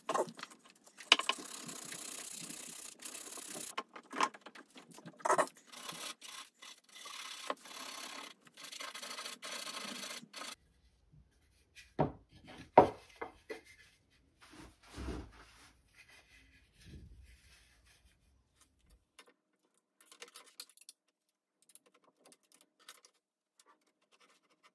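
Hand sanding of a pine (SPF) 2x4 table leg with a sandpaper disc, steady back-and-forth rubbing strokes. About ten seconds in the sanding stops, and a few knocks follow as wooden pieces are set down on the bench, the loudest a sharp knock a little after that.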